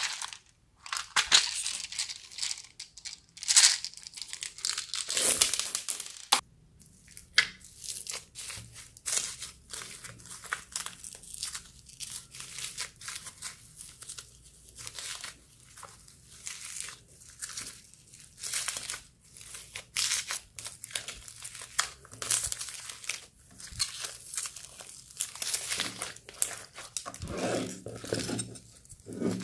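Hands squeezing, folding and kneading a large mass of slime mixed with foam balls and plastic beads: a long, uneven run of sticky crackles, clicks and squishes, denser and louder in the first few seconds, with deeper squelches near the end.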